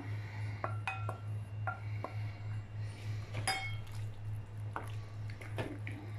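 Steel bowl clinking against a clay cooking pot and a wooden spoon scraping and stirring: a series of light knocks, several with short pings, the sharpest about three and a half seconds in, over a steady low hum.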